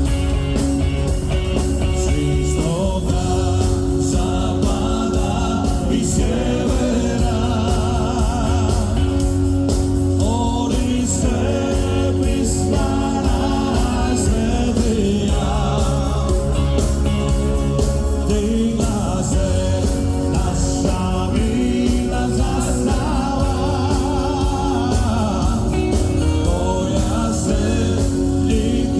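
Rock band music in a stretch without lyrics, with a steady full-band backing and a melody line held with a wavering vibrato over it.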